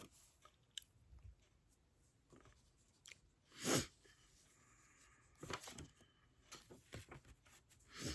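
Faint handling noises from a jewelry tool kit and its packaging: small clicks and crinkling rustles, with one brief louder rustle a little under four seconds in and a few more bunches of rustling later.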